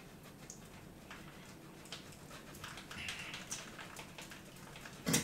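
Cheese being grated on a box grater over a lasagna dish: faint, uneven scraping strokes, with one sharper knock just before the end.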